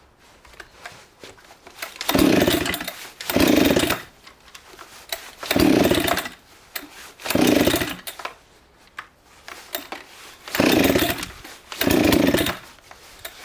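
Husqvarna 266 two-stroke chainsaw being pull-started six times in three pairs of pulls, turning over with each pull but not catching. The owner takes the engine to be flooded.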